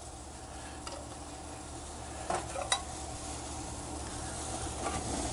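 Cleaned blue crab halves being laid into a steamer pot by hand, their shells clicking and scraping against each other and the pot's rack a few times, the sharpest clicks about halfway through. A steady low hum and hiss runs underneath.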